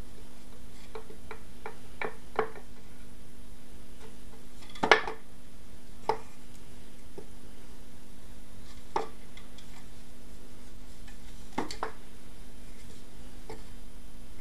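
Light taps and knocks on wood as a cat swats and grapples with a hand under a wooden stool: a quick run of small taps in the first couple of seconds, the loudest knock about five seconds in, then scattered single taps. A steady low hum runs underneath.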